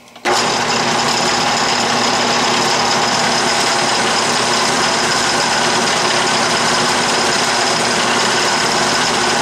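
12-inch Atlas lathe running steadily under power while the tool cuts a shallow taper in aluminum bar. The machine makes a noisy, even whine of many tones that starts abruptly just after the beginning.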